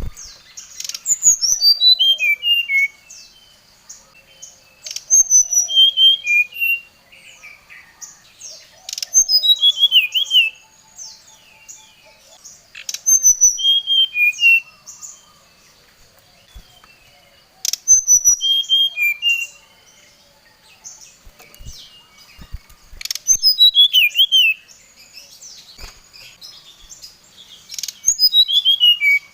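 Brown-chested jungle flycatcher (SRDC) song used as a lure call: a quick run of clear whistled notes tumbling downward in pitch, repeated about every four seconds, over a faint steady high hum.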